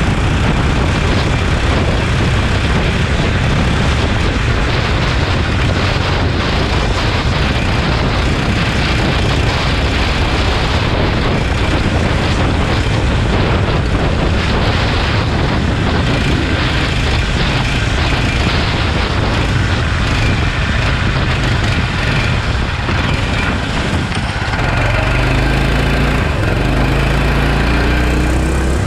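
Go-kart engine running hard at speed, heard from the kart itself, with a steady rush of wind and road noise. About 24 seconds in, the engine note drops and then rises and falls as the kart runs off the track onto the grass.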